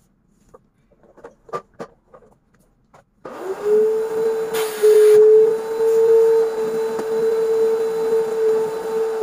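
A few light knocks, then about three seconds in a canister vacuum cleaner's motor switches on and runs with a steady whine and rushing suction noise. The suction noise swells and eases as the nozzle works over the carpet.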